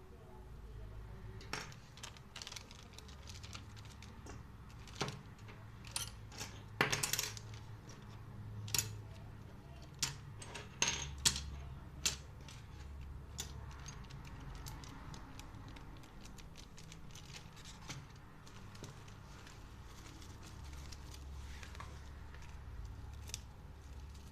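Small hard plastic or metal parts clicking and clinking as they are handled: irregular sharp clicks, thickest in the first half, then only a low steady hum.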